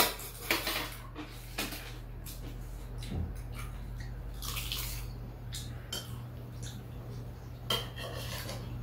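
Metal spoons and chopsticks clinking and scraping against a stainless steel serving bowl and small dishes during a meal: a few scattered clicks, over a low steady hum.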